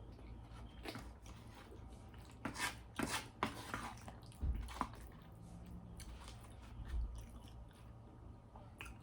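A person eating shrimp and cheese grits close to the microphone: soft wet chewing and mouth sounds, with a cluster of short bursts and clicks through the middle and a couple of dull low bumps.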